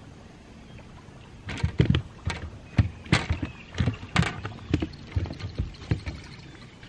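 Irregular knocks and thumps on a boat, roughly two a second, starting about a second and a half in and dying away near the end.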